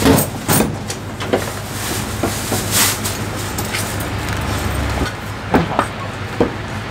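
A Chinese cleaver knocking on a thick round wooden chopping block a few times, twice near the start and three times close together near the end, over a steady hum of a busy shop.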